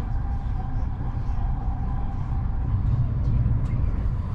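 Steady low rumble of a moving SBB passenger train, heard from inside the carriage: wheels running on the rails, with a faint whine and a few light clicks over it.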